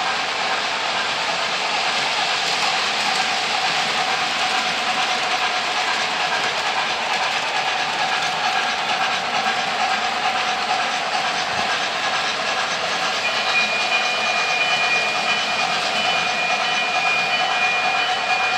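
O gauge model freight trains running on three-rail track: a steady rolling clatter of wheels and cars. A steady high-pitched tone joins about two-thirds of the way through.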